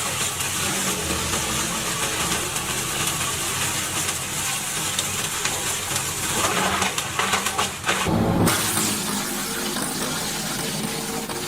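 Engine-driven wood chipper running with a dense, steady noise over its engine hum, and a brief loud surge about eight seconds in.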